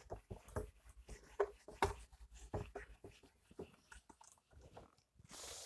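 Whiteboard duster wiping across the board in many short, irregular rubbing strokes, faint.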